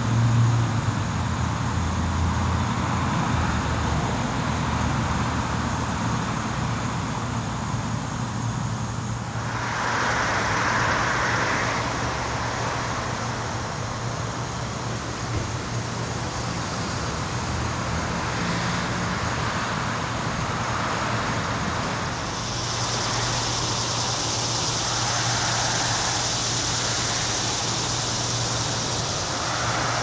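Steady road traffic noise under a low, even hum, with a passing vehicle swelling about a third of the way in. About two-thirds of the way in, a steady high-pitched hiss joins and holds.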